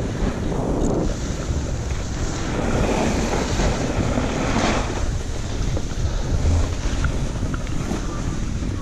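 Wind buffeting a moving camera's microphone, mixed with the steady hiss and scrape of snow sliding under a board's edges on packed snow, swelling and easing as the rider turns.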